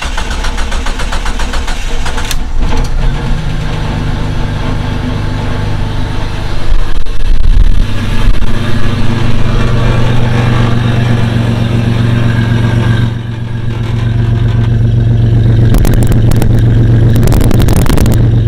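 Jeep Cherokee XJ engine cranking for about two seconds, then catching and running on its newly replaced fuel pump. It revs up a few times, then runs steadily.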